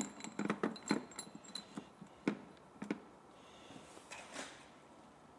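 A quick run of light clicks and knocks for about three seconds, then near quiet: hands handling parts under the bonnet.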